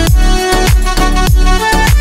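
Background music with a steady dance beat: a deep kick drum about three times a second under pitched instruments.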